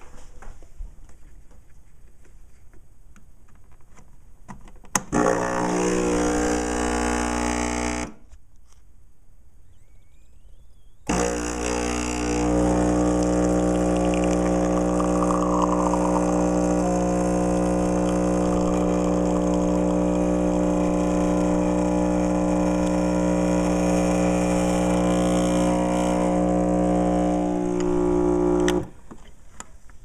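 Mr. Coffee ECMP50 espresso machine's vibratory pump buzzing as it pulls a shot: a steady droning hum that runs for about three seconds, stops for about three, then starts again and runs on until it cuts off near the end.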